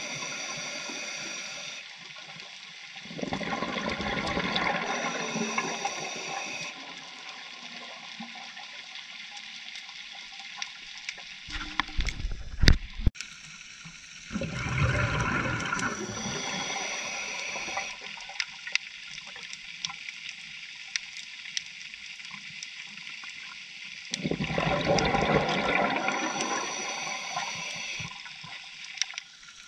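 Scuba diver breathing through a regulator underwater: a hiss on each inhale and a bubbling rush on each exhale, a breath about every ten seconds. A few sharp knocks about twelve seconds in are the loudest sound.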